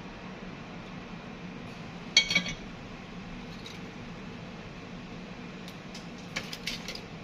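Small metal repair tools clinking and tapping on a workbench: a sharp cluster about two seconds in, then a quieter run of clinks near the end, over a steady low hum.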